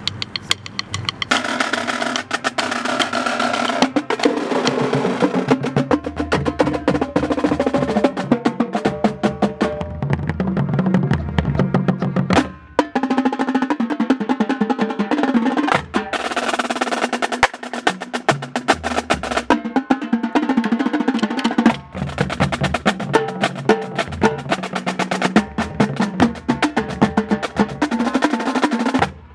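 Marching band drumline playing fast, dense patterns on snare drums, tenor drums and bass drums, with the band's horns sustaining pitched chords over it. The percussion drops out briefly a few times, about 12 and 22 seconds in.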